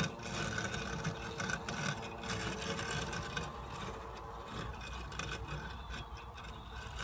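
Husqvarna Automower robotic lawn mower running steadily across grass, a quiet whir with a faint steady hum from its motors and cutting disc.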